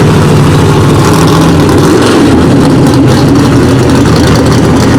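Loud car engine running at low speed with a deep, steady note, as a car rolls slowly past.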